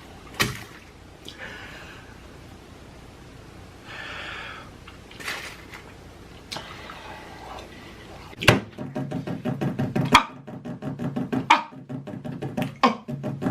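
Faint clicks and handling noises, then, about two-thirds of the way through, a sharp hit starts a music track with a steady bass line and sharp percussive beats in a beatbox-like style.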